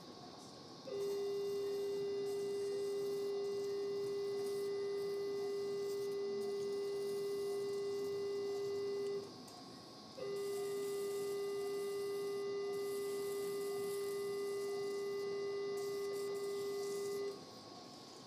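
Electrosurgical generator's activation tone: one steady mid-pitched tone held for about eight seconds, a break of about a second, then held again for about seven seconds. It sounds while the cautery pencil is in use, dissecting through the pectoral muscle.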